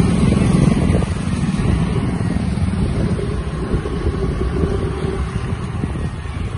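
Motor scooter ride: engine running steadily with wind rushing over the microphone.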